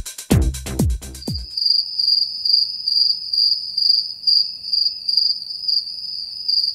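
Electronic dance music with a heavy kick drum stops about a second and a half in. A crickets sound effect follows: a steady, high, pulsing chirp, the stock comedy cue for an awkward silence.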